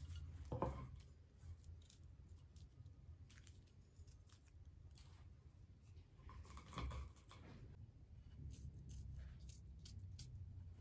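Faint small clicks and light scraping of a knife on garlic cloves as they are peeled and cut by hand, with two slightly louder knocks, one about half a second in and one around seven seconds.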